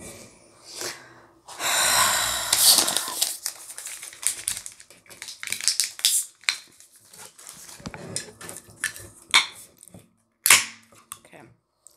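Aluminium cider can being worked open with fingernails: a burst of hissing fizz about two seconds in as the can vents, then scattered clicks and scrapes at the pull tab, with two sharp clicks near the end.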